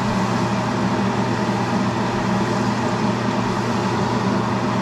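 Steady hum of a fan motor over an even hiss, the constant drone of a kitchen exhaust fan running during cooking.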